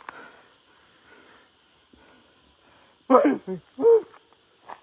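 Night insects, crickets, chirping steadily in the brush, with a voice calling out loudly twice about three seconds in.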